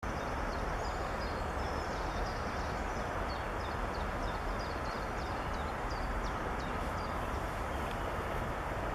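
Steady rushing outdoor noise with many short, high-pitched small-bird chirps scattered throughout.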